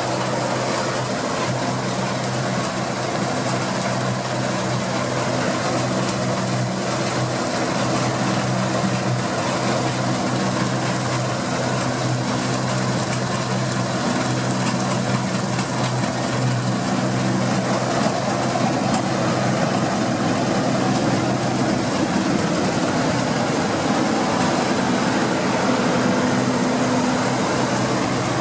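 Deutz-Fahr 6060 combine harvester running steadily while harvesting, its engine drone mixed with the noise of the working machinery; the engine pitch shifts slightly near the end.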